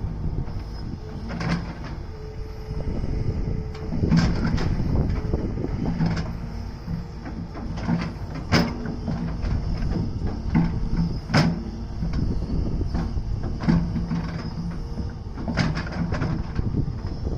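Hydraulic excavator running under load with a steady engine hum, and irregular sharp knocks every few seconds as the bucket works the soil of a slope.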